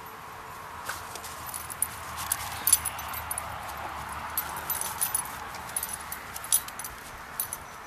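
Metal ID tags on a Great Dane's collar jingling in quick, irregular clinks as the dog moves about.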